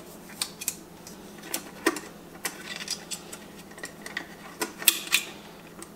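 Light, irregular metal clicks and taps from an upturned garbage disposal's housing and wiring cover plate being handled, over a faint steady hum.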